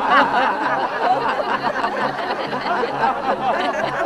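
A group of men and women laughing together, many voices overlapping in chuckles and giggles: deliberate greeting laughter done face to face with palms joined in namaste, as a laughter yoga exercise.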